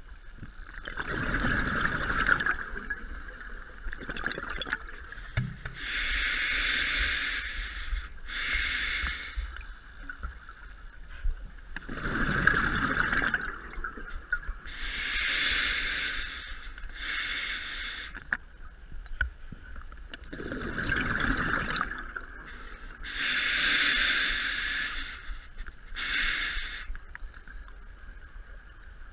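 A scuba diver's regulator, heard underwater: slow hissing inhalations alternating with gurgling bursts of exhaled bubbles, about three unhurried breaths.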